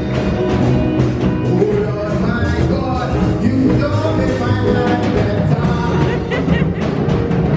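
Upbeat music with a steady beat, drums and a singing voice.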